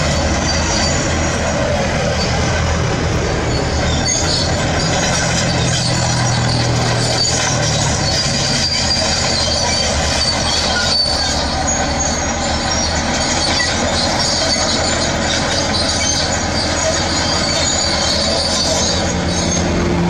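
Shantui SD16F crawler dozer working up close: its diesel engine running steadily, with the steel tracks squealing high-pitched and clanking without a break. The engine note grows stronger for a few seconds around the middle and again near the end.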